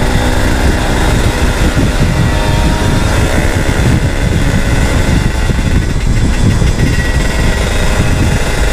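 Yamaha F1ZR's tuned two-stroke single-cylinder engine running steadily while riding at road speed, heard with heavy wind rumble on the camera microphone.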